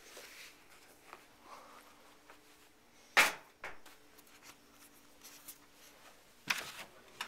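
A loud, sharp knock about three seconds in, a softer one just after, and another sharp knock near the end, over quiet room sound with a faint steady hum.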